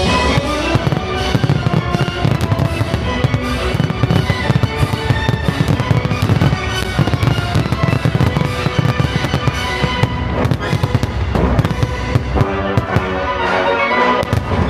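A dense, rapid run of firework bangs and crackles over loud show music.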